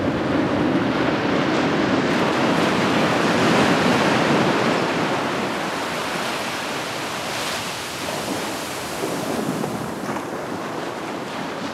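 Ocean surf rushing: a steady wash of breaking waves that swells to its loudest about four seconds in and then slowly eases off.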